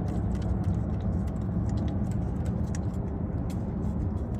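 Scattered light metallic clicks and taps from hand-threading and tightening the crankshaft position sensor bolt, over a steady low rumble.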